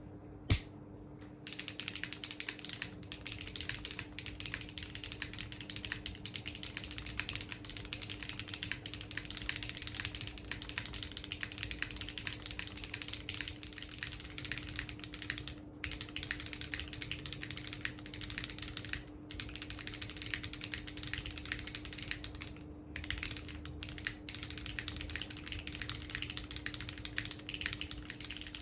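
Continuous fast typing on a Kohaku R2 custom mechanical keyboard with stock HMX Xinhai switches, GMK ABS keycaps and no foam dampening. The first half is on an aluminium plate; about 14 seconds in it changes to a carbon fibre plate. One louder clack comes just after the start, and a faint steady low hum sits underneath throughout.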